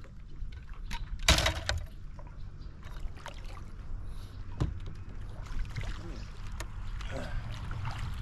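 A hooked bass being played beside a boat and scooped with a landing net: scattered splashes and clicks of gear handling over a steady low wind rumble on the microphone, with a short loud burst of splashing noise about a second in.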